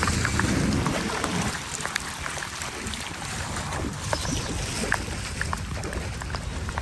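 Running floodwater splashing and trickling, with many small scattered drips and splashes over a steady rush, and a low rumble strongest in the first second or so.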